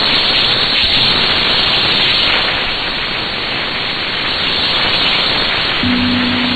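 Shortwave AM reception hiss and static from a weak broadcast signal on 9940 kHz, with a steady low tone coming in near the end.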